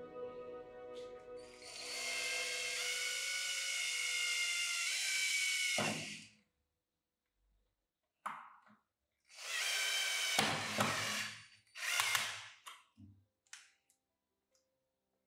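Cordless drill with a flexible shaft extension driving screws into pine shelf slats. There is one long run of the motor's whine, about four seconds, ending in a thump as the screw seats. After a pause come two shorter runs and a few brief blips.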